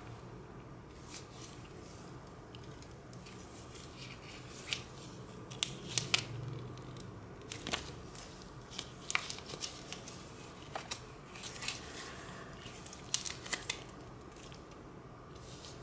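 Plastic film wrapping on a large block of cheese crinkling and crackling as it is handled, in irregular sharp snaps from about a third of the way in until near the end.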